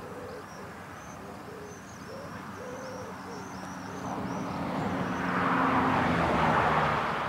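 Birds calling: low cooing notes and high thin chirps. Over the last few seconds a rush of noise swells up and becomes the loudest sound.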